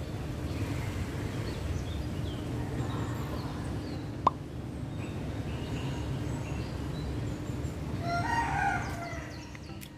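Steady low outdoor rumble with faint scattered chirps, a single sharp click about four seconds in, and a bird calling loudly for about a second near the end.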